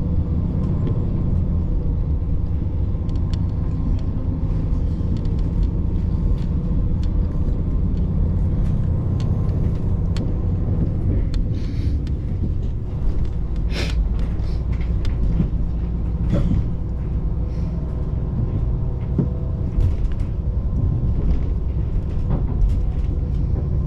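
Diesel railcar running along the line, heard from inside the cabin: a steady low engine and wheel rumble, with scattered sharp clicks and knocks from the running gear, the strongest about 14 seconds in.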